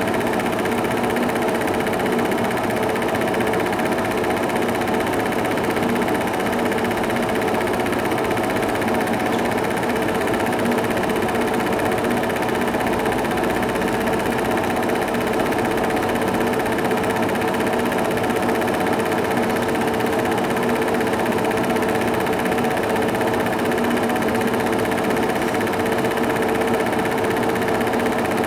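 Cine film projector running steadily, its motor and film mechanism making a constant mechanical whirr with a steady hum in it.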